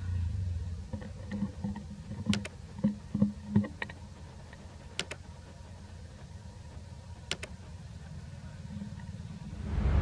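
Dry leaf litter and twigs crackling and clicking as a baby monkey moves and handles them, a cluster of small crackles in the first few seconds and a few sharp single clicks later, over a steady low rumble that swells near the end.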